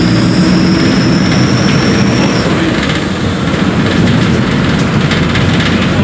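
VW 17.230 OD Euro V bus running on the move, a steady, loud mix of diesel engine and road rumble. A thin high whine slowly falls and stops about two and a half seconds in.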